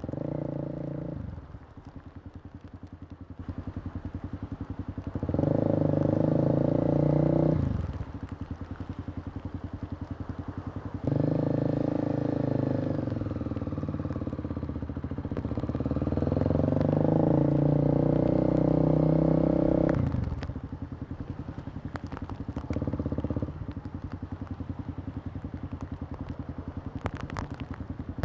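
Kawasaki KLX250's single-cylinder four-stroke engine heard from the rider's seat, ticking over quietly, then opened up under throttle twice: briefly about five seconds in, and for longer from about eleven seconds in, its pitch dipping and climbing as it pulls through the gears, before dropping back to a low run.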